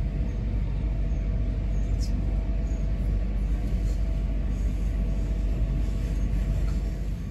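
Steady low rumble of an electric passenger train running along the line, heard from inside the carriage, with a faint steady hum above it.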